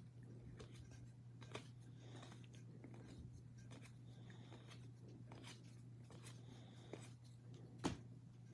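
Faint clicks and soft rustles of trading cards being handled and flipped through, with a sharper click near the end, over a steady low hum.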